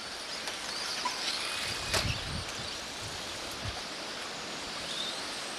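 Electric 2wd stock RC buggies racing on a dirt track, heard faintly as brief rising motor whines over a steady outdoor hiss and wind rumble, with a sharp clack about two seconds in.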